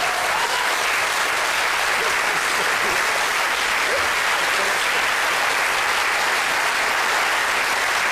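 Studio audience and panelists applauding, a steady wash of many hands clapping.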